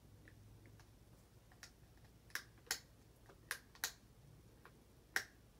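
A few faint, sharp clicks, mostly in pairs about a third of a second apart, over a low steady room hum.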